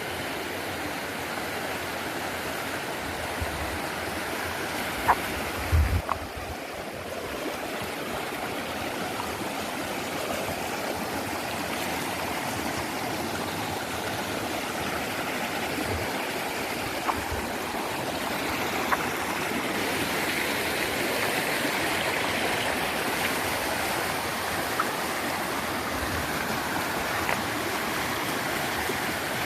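Steady rushing and babbling of a flowing stream. A few light clicks sound through it, with a low thump about six seconds in.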